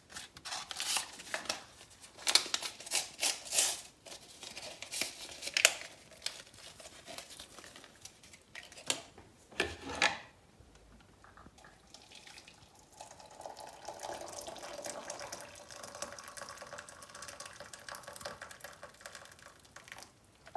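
A paper tea sachet is rustled and torn open, with clicks and a knock as the tea bag goes into a china cup. About halfway through, hot water starts to pour from an electric kettle into the large cup, a steady pour of several seconds that stops just before the end.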